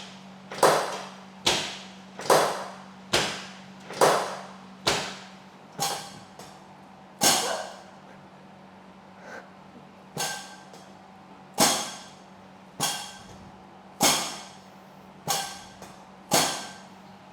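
A series of sharp knocks, roughly one a second, each with a short ringing tail, and a break of about two seconds a little before halfway. A steady low hum runs underneath.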